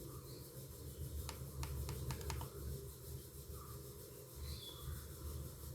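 About half a dozen faint, quick clicks from the Razer Basilisk gaming mouse's profile button being pressed, a little over a second in.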